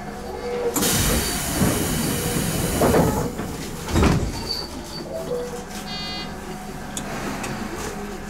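Tobu 10030-series electric train standing at a station: a sudden hiss of air lasting about two seconds, then two heavy thuds a second apart, as its pneumatic doors close, all over a steady low hum. A short high tone sounds about six seconds in.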